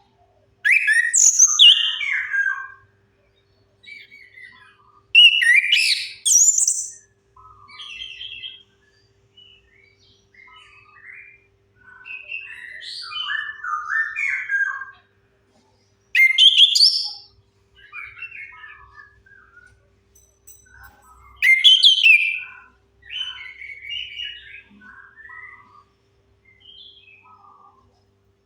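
Chestnut-capped thrush (anis kembang) singing: four loud outbursts of quick, varied phrases, with softer, scattered phrases between them. A faint steady hum runs underneath.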